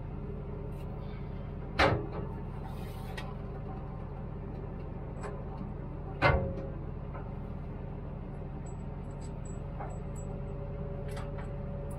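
Log loader's engine running with a steady low hum. Two sharp knocks come about two and six seconds in, the second ringing briefly, with a few lighter ticks near the end.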